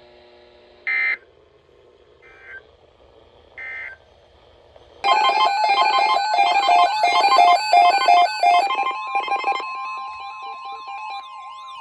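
Three short electronic data bursts about a second apart, typical of an EAS end-of-message code closing a weather-radio alert. Then a loud synthesized alert tone: several pitches pulsing about twice a second, which settle into a steady two-tone note near the end.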